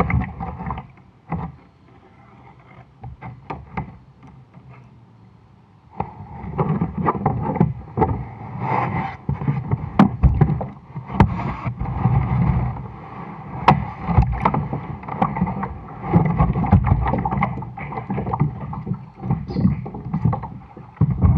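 Water sloshing against a plastic kayak hull, with irregular knocks and clunks on the hull. It is fairly quiet with scattered clicks at first, then busier and louder from about six seconds in.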